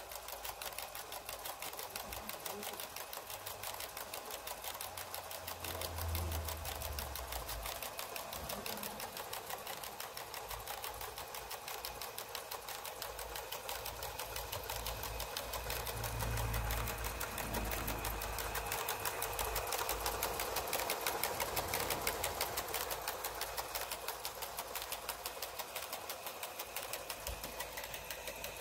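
Hasler Bern RT9 and RT12 railway speedometers running, their mechanisms making a rapid, even mechanical ticking, over the steady whine of the universal motor that drives their tachogenerator. Two brief low rumbles come in partway through.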